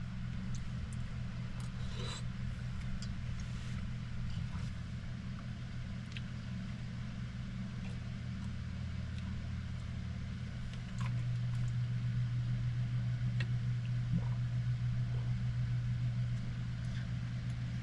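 Steady low mechanical hum, like an idling engine, that steps up louder about eleven seconds in and drops back near the end, with a few faint light clicks over it.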